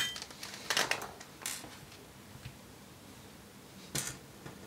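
Handling sounds as a metal 2.5-inch drive bracket is laid on the laptop's open base and small screws are handled: a sharp click at the start, two short rustling scrapes about a second in, then a quiet stretch and one more click near the end.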